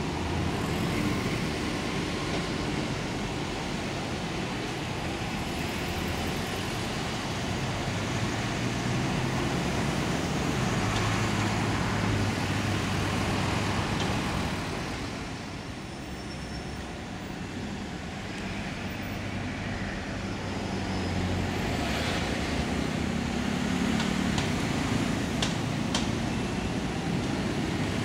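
Mixed road traffic: the engines of lorries, cars and double-decker buses running as they pass and pull away. The engine noise eases off for a few seconds midway, then builds again as more vehicles move off.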